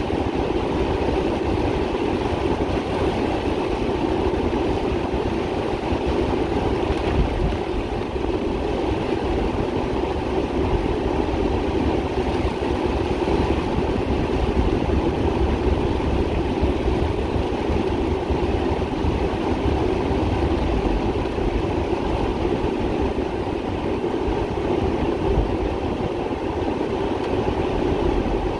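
Heavy rain pouring steadily on a paved street, a dense even hiss with a low rumble underneath.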